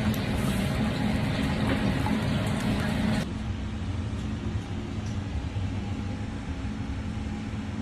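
Steady low vehicle rumble with road noise; about three seconds in the sound changes abruptly and the hiss above it drops away.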